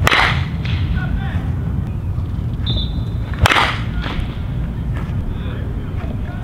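Metal baseball bat hitting pitched balls in batting practice: two sharp pings with a short ring, about three and a half seconds apart.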